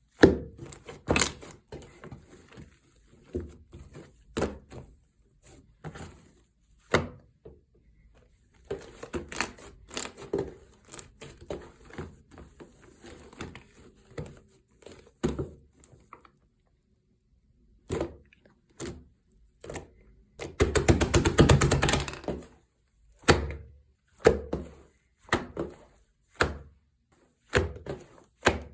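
Slime being squished, pressed and stretched by hand, giving irregular sharp pops and clicks as air pockets burst. About two-thirds of the way through comes a dense second and a half of rapid crackling.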